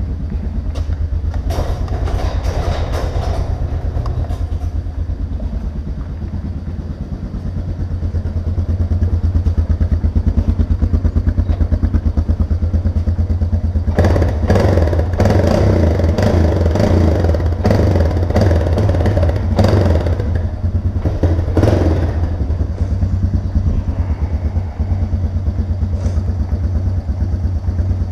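Honda Recon 250 ATV's single-cylinder engine running in the garage just after an oil change, revved a little to circulate the fresh oil. It gets louder about eight to ten seconds in, with some clatter between about 14 and 22 seconds.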